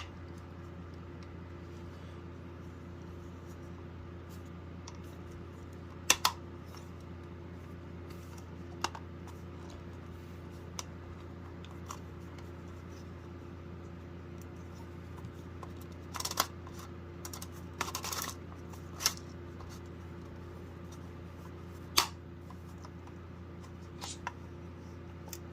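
Scattered plastic clicks and scrapes of a smoke alarm being handled and fitted back together, a small cluster of them about two thirds of the way through, over a steady low hum.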